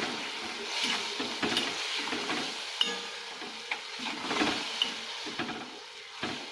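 Tomato puree, peas and spiced onion sizzling in a steel kadhai while a spatula stirs and scrapes through it in repeated strokes, with a few sharp clicks of the spatula against the pan.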